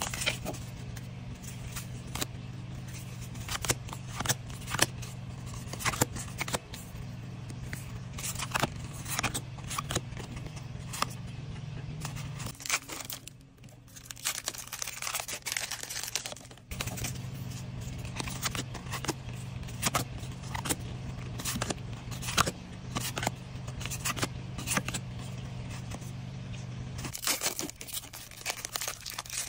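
Pokémon trading cards flicked and slid one past another in the hands, with the crinkle and tear of foil booster-pack wrappers: a busy run of quick snaps and rustles. A low steady hum runs underneath and drops out twice.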